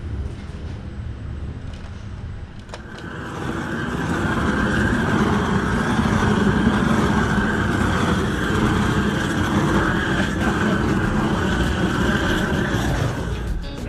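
A propane weed-burner torch running with a loud, steady roar while charring wooden boards. It comes in about three seconds in, after a quieter low rumble, and holds until near the end.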